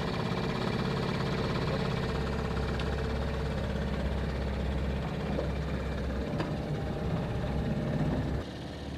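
A motor running steadily with a low, even hum, which drops away suddenly about eight and a half seconds in.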